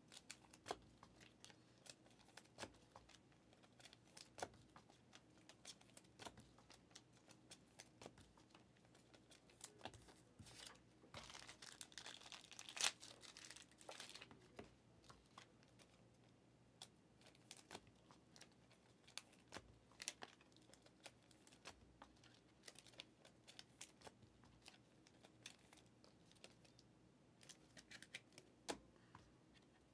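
Faint handling of trading cards and plastic card packaging: scattered small clicks and crinkling, with a denser stretch of crinkling about eleven to fourteen seconds in.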